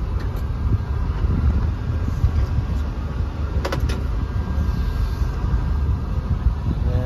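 The International TerraStar's diesel engine runs with a steady low rumble, heard from inside the cab. A few sharp clicks come about halfway through.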